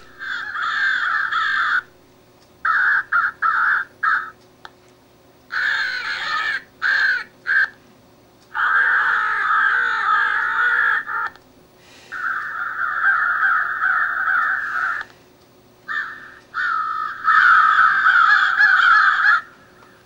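Cass Creek electronic crow caller playing recorded crows cawing through its small loudspeaker. The calls come in a string of bursts, from short clusters of caws to runs of about three seconds, with pauses of about a second between.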